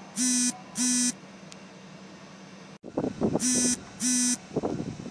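Electronic buzzer sounding two short, loud beeps of one steady pitch. After a break it sounds two more, with rough, irregular noise under the second pair.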